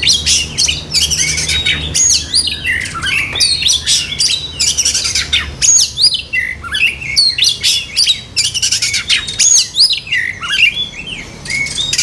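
Many caged songbirds chirping and whistling at once, with quick overlapping rising and falling whistles and chips.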